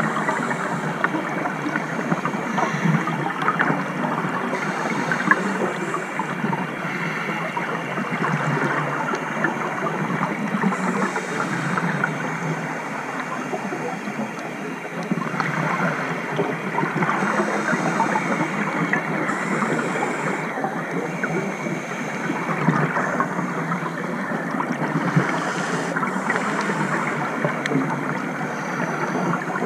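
Underwater sound of a scuba dive, picked up by a camera in its housing: a steady gurgling rush of regulator bubbles with fine crackle, swelling every few seconds.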